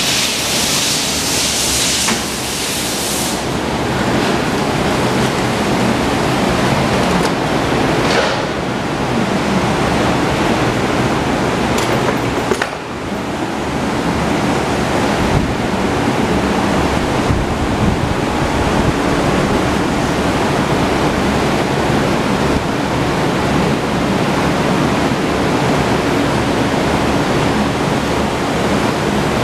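Loud steady rushing noise, with a faint low hum under it and a brighter hiss in the first three seconds.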